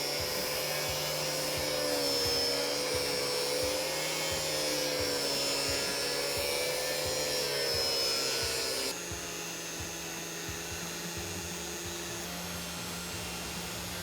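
Angle grinder with a thin cutting wheel cutting through a plastic bumper and grille, its whine wavering as the load changes. About nine seconds in it drops somewhat quieter and lower in pitch.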